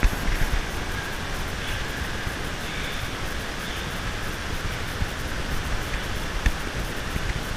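Wind buffeting the camera microphone: a steady rush with an uneven low rumble, and a couple of faint clicks in the second half.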